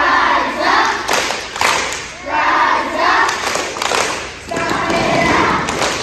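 A group of children singing a chant together in unison, in repeated phrases about a second and a half apart, with thumps mixed in.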